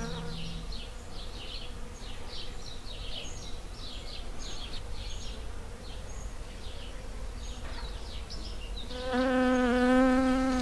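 Honeybee buzzing as it flies close by, a steady hum heard briefly at the start and again, louder, for the last second and a half. Rapid high chirps repeat in the background throughout.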